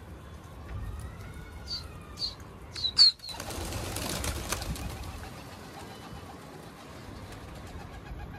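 A flock of domestic pigeons taking off together, a burst of wing flapping about three seconds in that fades over the next couple of seconds. Before it come a wavering whistle and a few short, sharp high sounds, the loudest a single sharp crack just as the flock lifts off.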